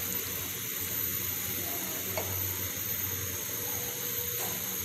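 Macaroni sizzling in a metal karahi on a gas stove, a steady hiss, while a spatula stirs it through.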